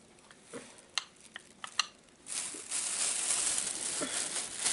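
A few soft clicks, then from about two seconds in a steady rustling and crinkling of packaging or wrapping being handled.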